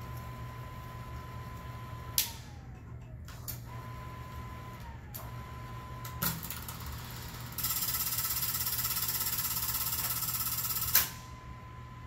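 8mm film projector with its motor whining steadily over a low hum. Switch clicks twice send the whine sliding down in pitch before it picks up again, and from about halfway a loud, even mechanical rattle runs for about three seconds and cuts off with a click.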